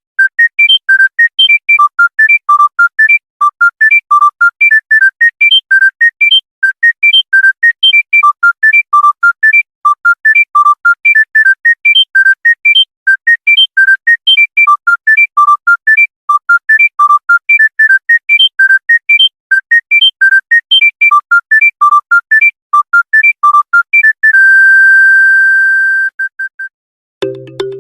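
Monophonic electronic mobile-phone ringtone: a fast melody of short, high beeping notes repeated in phrases, ending on one long held note about 24 seconds in. A different, lower ringtone starts just at the end.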